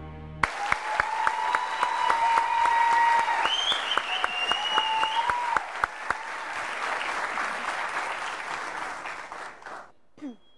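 Studio audience applauding. The claps fall into a steady beat of about three a second for the first half. The applause cuts off abruptly near the end.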